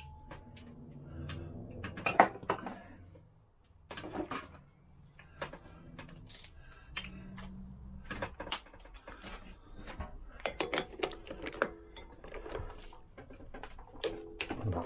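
Irregular metallic clicks and clinks of tools and parts being handled around a Lambretta engine's rear hub on a workbench.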